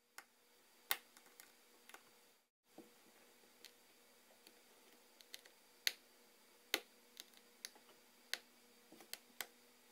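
Faint, irregular small sharp clicks of a small screwdriver and tiny screws against the metal and plastic parts inside an iPhone 4S as the screws are taken out.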